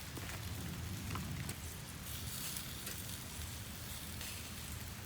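Campfire burning, a steady hiss with a few small crackles scattered through it.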